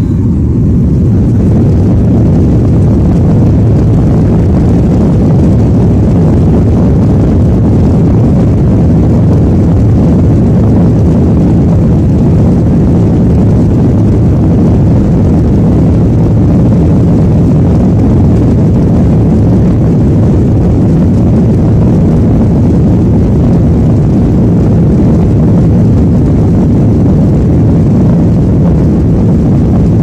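Jet airliner's engines spooling up to takeoff thrust within the first second, then running loud and steady through the takeoff roll, heard from inside the passenger cabin.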